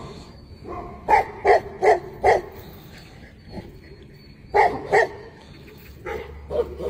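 Tibetan mastiff barking: a quick run of four loud barks, then two more a couple of seconds later, and a few quieter barks near the end.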